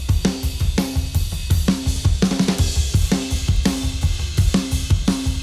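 Recorded rock drum kit (Tama Starclassic birch/bubinga kit, 26-inch kick and Kapur snare) played back in a fast, driving punk beat: kick, snare and cymbals. The snare hits ring out about twice a second. The mix is heavily compressed, with a hard-panned parallel-compression pair being blended in to widen the sound.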